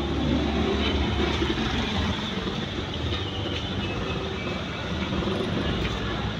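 Steady rumbling noise of a moving vehicle, with a low engine hum.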